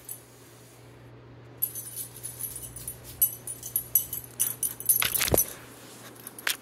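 A small dog moving about up close, with light jingling and clicking from about a second and a half in. Around five seconds in there is a loud brief rush of noise as its nose comes right up to the microphone.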